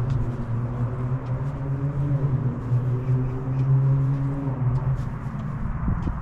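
A motor vehicle's engine hums steadily at a low pitch, swelling slightly and then fading about five seconds in. Footsteps on the trail tick faintly over it.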